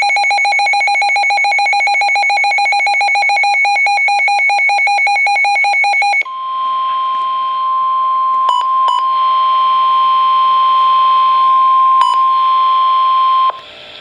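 A fast-pulsing electronic alarm beep for about six seconds. It then changes to the steady single-pitch NOAA Weather Radio 1050 Hz warning alert tone, which signals that a warning broadcast follows. The tone has a few brief dropouts and cuts off shortly before the end.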